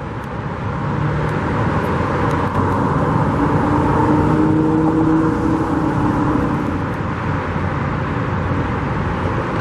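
Road traffic: steady motor vehicle noise, with one vehicle swelling past about halfway through.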